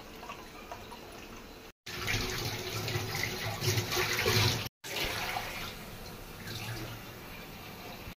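Freshly blended carrot juice being strained and poured from a steel tumbler into a glass: a splashing, running-liquid sound, loudest in the middle. It breaks off abruptly twice for a moment.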